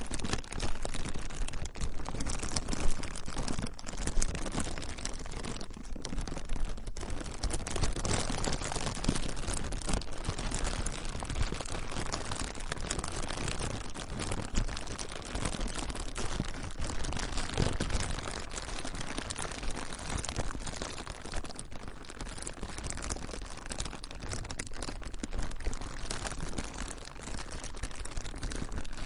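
Plastic being crinkled and crumpled by hand, a continuous dense crackling with sharper pops now and then.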